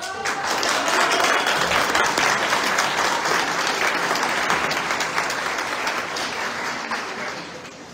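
Audience applauding. It starts abruptly, is at its fullest within about the first second, and tapers off gradually toward the end.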